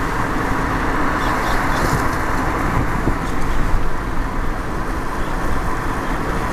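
Steady rumble and hiss of a car driving along a road, heard from inside the moving car: tyre, engine and wind noise.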